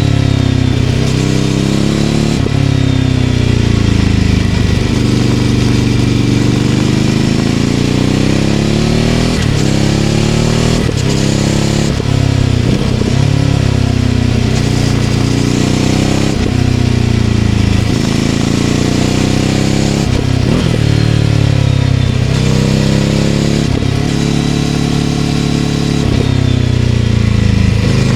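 Ducati Scrambler 800's air-cooled L-twin running through a Leovince LV-10 exhaust on the move. The engine pitch climbs and drops again and again as the throttle opens and closes, with brief breaks between the sweeps.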